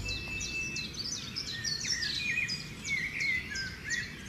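Birds chirping: a quick run of short, high-pitched chirps and whistles. A thin steady whistle is heard in the first second, and lower chirps join from about two seconds in.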